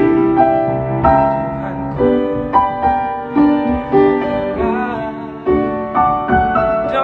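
Piano playing a slow gospel song, struck chords and single notes dying away, with a man's voice singing over it in places.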